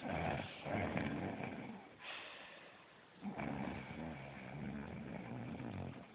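A sleeping person snoring loudly: two long snores, the second starting about three seconds in, with a quieter breath between them.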